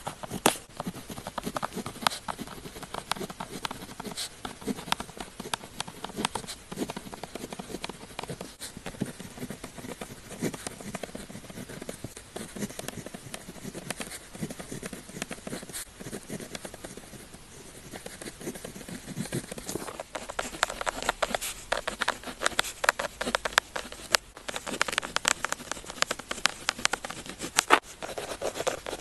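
Pen tip writing on paper: quick scratching strokes and light taps, quieter for a while midway and busier near the end.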